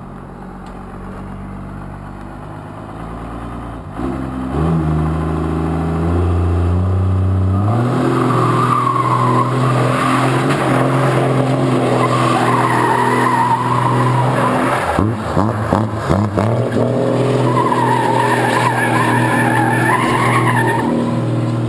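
A vehicle engine sound that climbs in abrupt steps, then runs hard, with squealing like tyres skidding over it for most of the second half.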